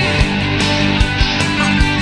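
Instrumental music with a drum beat and no singing, the lead-in to a Tamil Christian song.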